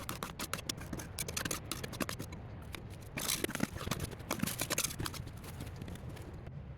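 Cooking utensils and cookware being handled: an irregular run of quick clicks, taps and scrapes, busiest in the middle and thinning toward the end, over a steady low rumble.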